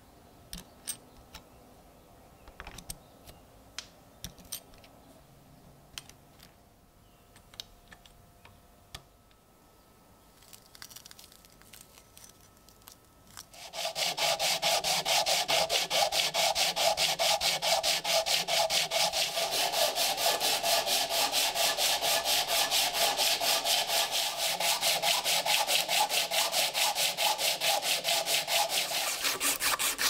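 Light handling clicks and taps, then, about 14 seconds in, hand sanding on fine sandpaper starts: quick, even back-and-forth rubbing strokes, several a second.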